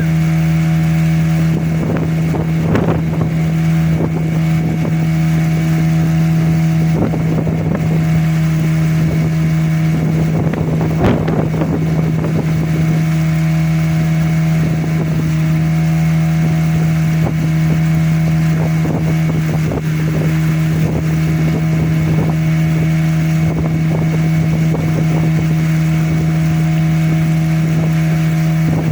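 A motorboat's engine running at a steady speed, one even drone that never changes pitch. Now and then there is a brief rush of wind or water noise, the biggest about eleven seconds in.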